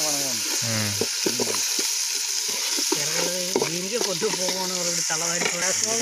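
Chopped onions and green chillies sizzling in hot oil in a metal pot while a ladle stirs them, being sautéed until golden. Voices talk in the background.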